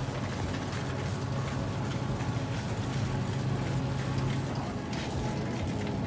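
Metal shopping cart rattling steadily as it is pushed over a tiled floor, with a low hum underneath.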